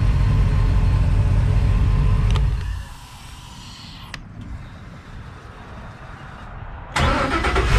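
Crusader marine V8 engine running with a steady low rumble. The rumble drops away abruptly about two and a half seconds in, leaving a much quieter stretch with a single click, then comes back just as suddenly near the end.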